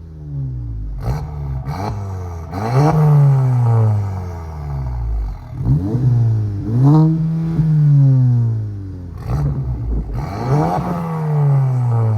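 Volkswagen Mk7 Golf's turbocharged 2.0-litre four-cylinder revved repeatedly through an APR cat-back exhaust, about six blips that each rise quickly and fall back.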